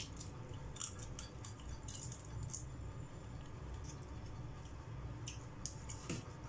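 Eating sounds of shrimp eaten by hand: scattered small clicks and smacks of chewing and of fingers picking at the plate, over a low steady hum.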